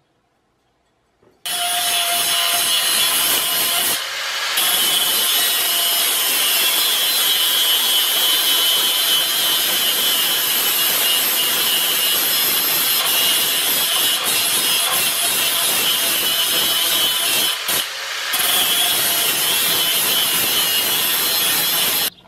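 Angle grinder with a cutoff disc grinding the edge of a steel lawnmower blade held in a vise: a loud, steady grinding with a high whine. It starts abruptly after a second and a half of silence, eases off briefly twice as the disc lifts off the edge, and cuts off just before the end.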